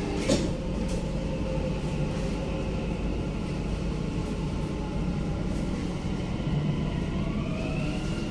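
Dubai Metro train running, heard from inside the car: a steady rumble with a short click about a third of a second in. Near the end a motor whine rises in pitch as the train picks up speed.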